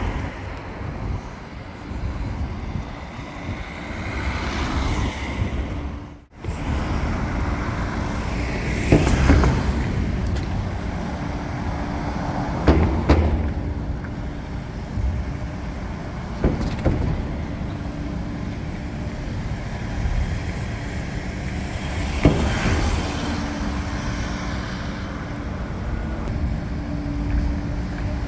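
Cars driving off a ferry ramp close by: engines and tyres running over a steady low hum, with a few sharp clunks as wheels cross the steel ramp plates.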